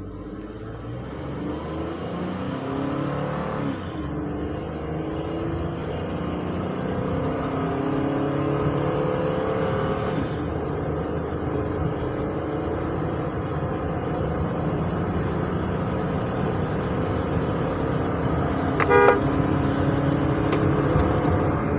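2020 Ford Transit van engine under hard acceleration with road noise. The engine pitch climbs, drops back about four and ten seconds in, then holds steady. This is a full-throttle road test to see whether the random misfire returns after a crankshaft relearn. A short horn toot sounds near the end.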